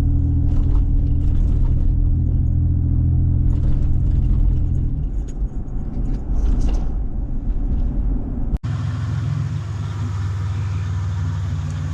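1997 Toyota 4Runner's engine running with a steady low hum. About five seconds in, its note changes and turns rougher. It cuts out for an instant about eight and a half seconds in, then carries on steady.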